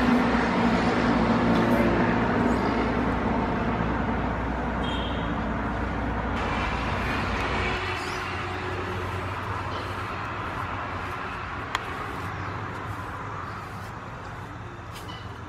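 Motor vehicle engine and road noise, a broad rumble with a low hum that gradually fades as it moves away, the hum dropping out about halfway through. A few faint high chirps and one sharp click sound over it.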